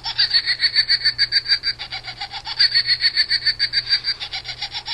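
A plush toy's built-in electronic laugh playing through its small speaker: a high-pitched, rapid chattering cackle of about nine pulses a second.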